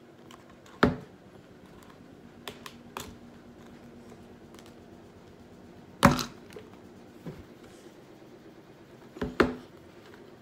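A plastic slime tub and its snap-on lid being handled: a few sharp plastic knocks as they are set down and bumped on the table, about a second in, again midway, and a quick double knock near the end, with lighter clicks between.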